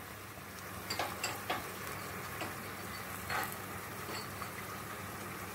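Tomatoes, onions and garlic cooking in a metal pot with a faint, steady sizzle, with a few light clicks and taps scattered through the first four seconds.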